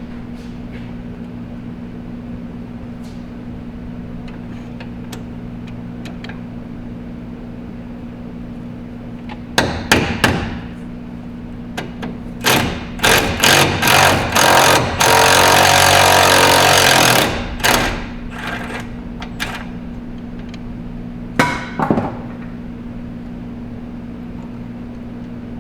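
Cordless power tool hammering and spinning out a 10 mm bolt on a truck's lower steering shaft: short bursts, then a couple of seconds of continuous rattle before it stops. A few metal clanks follow, over a steady low hum.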